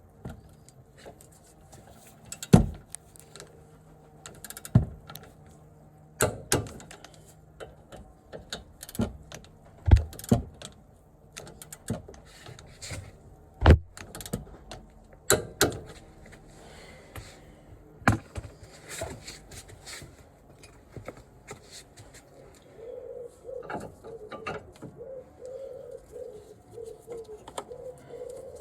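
Scattered sharp clicks and knocks of hand tools and parts being handled during wheel-hub reassembly. In the last few seconds a pigeon coos repeatedly in the background.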